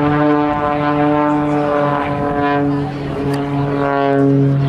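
Aerobatic propeller plane's engine running at a steady pitch with a stack of overtones, briefly dipping about two and three seconds in.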